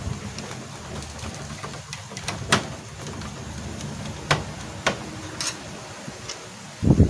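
A few sharp light clicks and taps, as of small parts being handled during projector repair, over a low steady hum.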